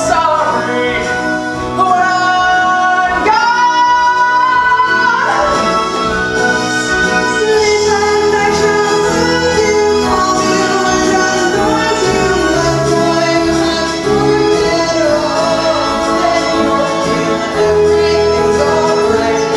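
A stage-musical song: singing with instrumental accompaniment. Voices hold long notes in the first few seconds, then the music grows fuller.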